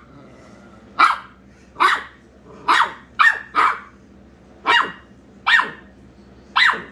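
Small dogs barking in a playful squabble: eight short, sharp barks at roughly one a second, two of them coming close together a little past the middle.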